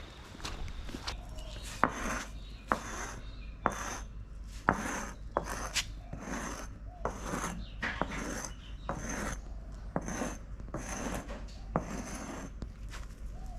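Footsteps at a steady walking pace, a little under two steps a second, with a few sharp clicks among them.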